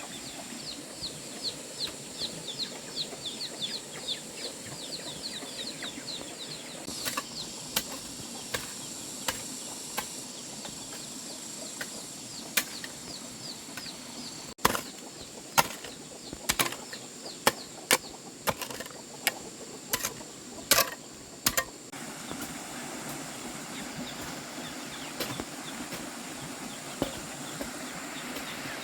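A small bird's quick series of short, falling chirps, about five a second, for the first several seconds. Then a dozen or more sharp, irregular knocks, loudest between about fifteen and twenty-two seconds in, over a faint steady high hiss.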